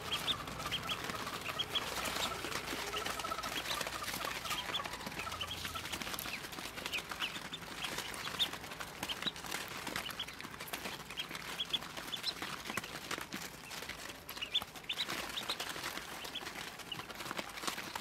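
A brood of Muscovy ducklings peeping, many short high peeps overlapping irregularly, with light clicks and scuffling from the chicks moving over the litter.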